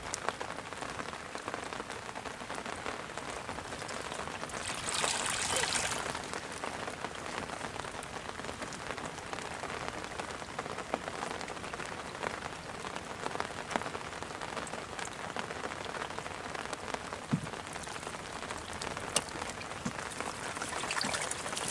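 Steady patter of rain falling on water, with many small drip ticks and a louder rushing splash about five seconds in.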